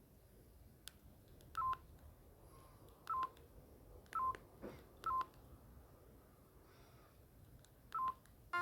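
Huawei T261 phone's keypad beeping as its buttons are pressed: five short, same-pitched beeps at irregular intervals, with faint button clicks between.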